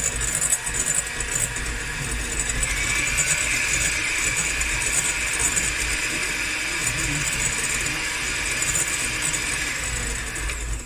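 Electric hand mixer running steadily, its twin beaters whisking a batter of eggs, sugar and oil in a glass bowl; it stops right at the end.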